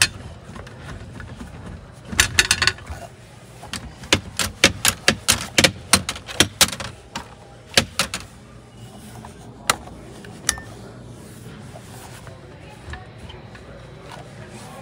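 Irregular sharp clicks and knocks of things being handled, clustered about two seconds in and thick between about four and seven seconds, over a low steady hum.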